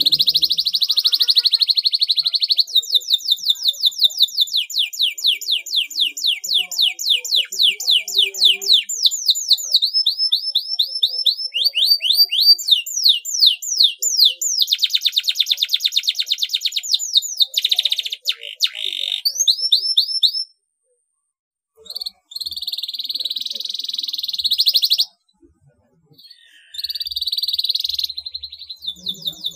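Domestic canary singing a long, loud song of fast trills: a buzzy roll, then rapid runs of repeated falling notes and rolls, with two short breaks in the second half.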